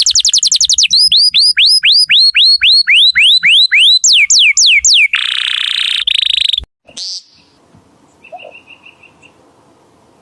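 A bird's call: a fast run of sharp, downward-sliding whistled chirps, about three or four a second, for about five seconds. A harsh, buzzy burst follows, then only faint, quiet chirps near the end.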